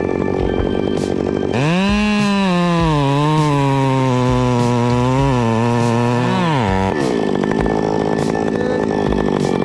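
Chainsaw running with a rough rattle. About a second and a half in, it revs up to a high whine, then drops to a lower, steady pitch with small dips, as an engine does when it is pulled down in a cut. It falls off just before the end and returns to the rattle.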